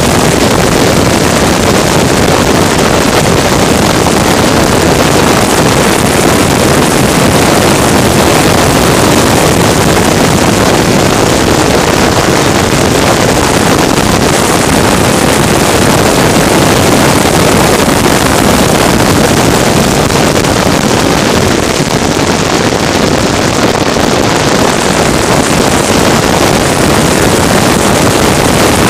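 Racing vehicle running flat out: a loud, steady rush of engine and wind noise across the microphone.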